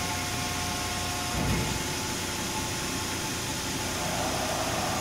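Cincinnati 400-ton CNC hydraulic press brake running with a steady hydraulic hum. About a second and a half in there is a low thump and the hum's tones change, and near the end a rushing hiss comes in.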